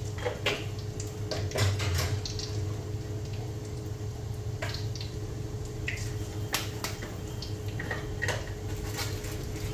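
Whole spices (cumin, bay leaf, cloves, black cardamom) sizzling in hot ghee in a kadhai, with irregular sharp pops and crackles. A steady low hum runs underneath.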